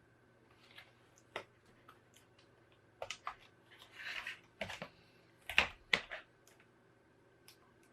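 Small plastic clicks, taps and a brief scrape as the Toshiba Tecra R840 laptop's parts are handled and fitted back together, the sharpest clicks bunched about three to six seconds in.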